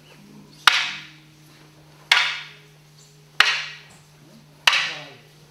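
Wooden kobudo staffs striking each other in a paired drill: four sharp clacks about one every 1.3 seconds, each ringing briefly.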